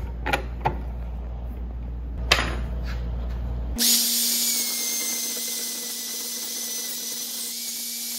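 A few sharp knocks and clicks as a metal rod is set in a bench vise, then about four seconds in a Dremel rotary tool with a cutoff wheel starts and runs at a steady high whine, grinding through the all-metal string-dampener rod.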